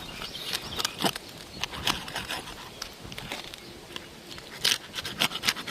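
Roof snake shingle-removal tool prying and scraping under asphalt shingles, with irregular sharp clicks and crackles as the brittle shingles give way.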